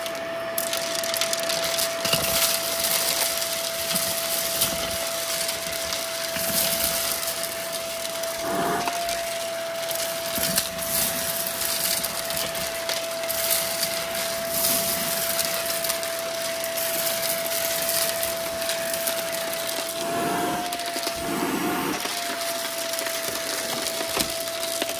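Vacuum cleaner running with a steady whine while its hose wand sucks up a pile of crushed hard debris. The bits crackle and rattle up the tube.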